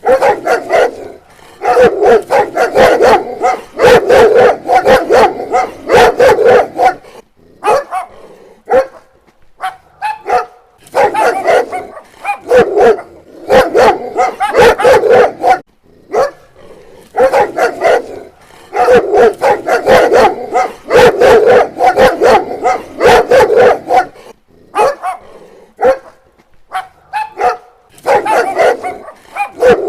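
A dog barking loudly in rapid volleys of many barks each, separated by short pauses.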